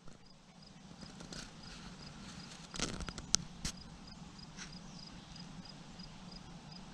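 A dog chewing and crunching on its fresh kill: a short cluster of sharp clicks about three seconds in. Behind it an insect chirps faintly and steadily, about three chirps a second.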